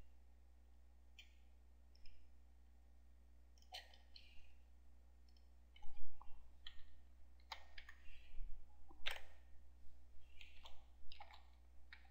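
Computer mouse and keyboard clicks: a few scattered clicks, then a quicker run of clicks from about halfway through, over a low steady hum.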